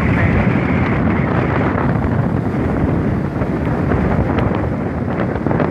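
Strong storm wind from Tropical Storm Pabuk buffeting the microphone on the seashore, a heavy low rumble, with the rush of surf beneath it.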